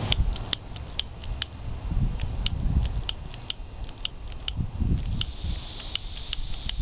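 Spark lighter clicking over and over, about two strikes a second, as it tries to light a propane burner that has not yet caught. A steady high hiss comes up about five seconds in.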